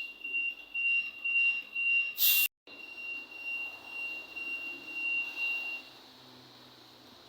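A high-pitched electronic beeper sounding in steady pulses. It is broken about two and a half seconds in by a short burst of noise and a split-second cut, carries on, and stops about six seconds in.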